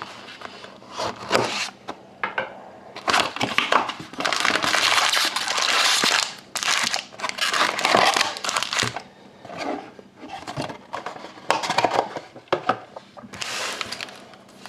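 Trading card packaging being unwrapped: plastic and foil wrapping crinkling and tearing in irregular bursts, with a longer, denser stretch a few seconds in.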